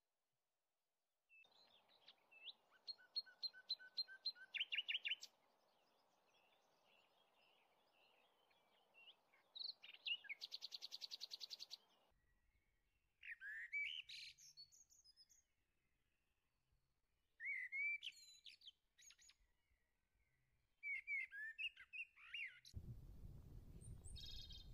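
Small birds chirping and singing in short, separate phrases, with a rapid trill about ten seconds in. The background changes abruptly a few times, and a low rumbling noise comes in near the end.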